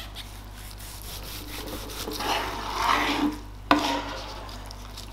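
A long slicing knife sawing back and forth through a smoked turkey breast with a peppery crust, the strokes rasping and scraping against a wooden cutting board. The scraping swells after about two seconds, and a sharp knock comes a little later, about three and a half seconds in, as the blade meets the board.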